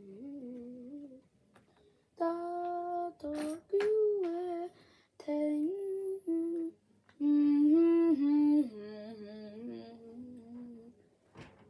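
A child humming a wordless tune in held notes that step up and down, in several short phrases with brief pauses between them.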